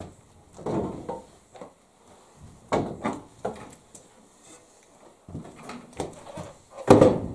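Wooden stool knocked and dragged on a wooden floor: a string of uneven knocks and scrapes, some with a short squeal, the loudest near the end.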